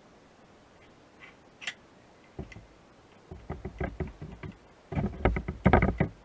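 Metal clicking and clattering as a hydraulic hose fitting is worked onto a hydraulic cylinder's port: a few scattered clicks, then from about two and a half seconds in quick runs of clicks, about eight a second, with dull knocks underneath, the loudest run near the end.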